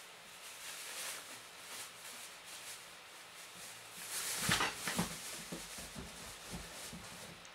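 Rustling and scraping with a few soft low thumps, loudest about four and a half seconds in.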